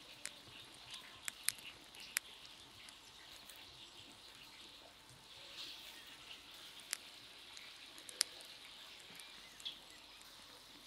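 Faint steady hiss of background ambience, broken by scattered sharp clicks, about eight of them at irregular moments.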